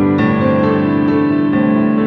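Background music led by piano, soft and slow, with sustained chords and new notes coming in about every half second to second.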